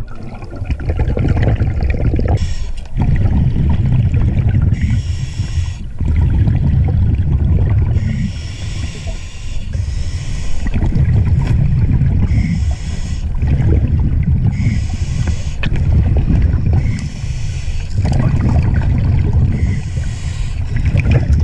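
Scuba diver breathing through a regulator underwater: a short hiss on each inhale, then a loud rumble of exhaled bubbles, the cycle repeating about every two seconds.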